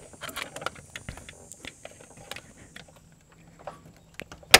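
Irregular small clicks and taps of metal hose-clamp pliers being handled and worked against the plastic parts around a radiator hose, with one sharp click near the end.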